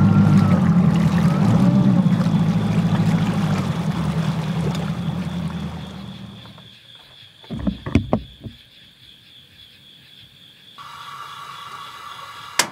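Mercury Pro XS outboard motor running with the boat under way, a steady low hum with hull and water noise that fades away over the middle. A few sharp knocks follow, then a quieter steady background sets in near the end.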